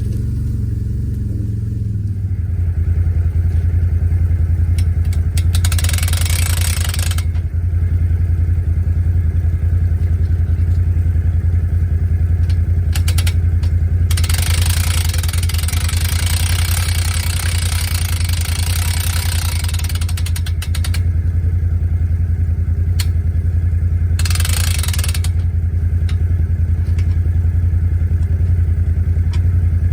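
ATV engine running, picking up a little about two seconds in and then holding steady, with three stretches of hissing noise laid over it, the longest about six seconds.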